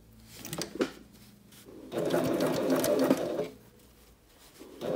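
Domestic sewing machine stitching piping onto a fabric edge, run in a burst of about a second and a half, stopping, then starting again near the end. A couple of light clicks come before the first burst.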